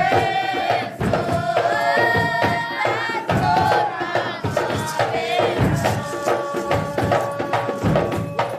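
Rastafari group chanting in unison over hand percussion with a steady beat and a tambourine.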